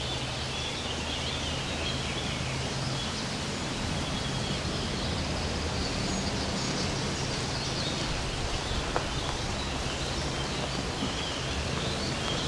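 Steady outdoor ambience: an even hiss over a low rumble, with faint bird chirps now and then.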